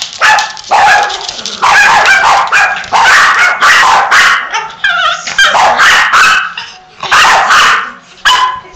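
Yorkshire terriers barking: quick runs of loud, high-pitched barks with short pauses between them.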